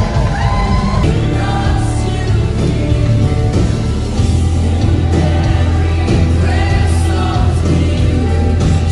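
Gospel worship music: a choir of voices singing over sustained bass notes.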